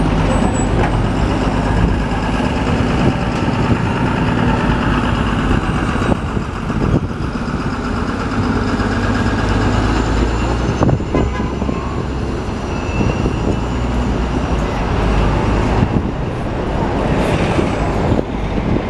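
Hybrid electric city bus pulling away from a stop and driving off, its engine running over steady street traffic noise.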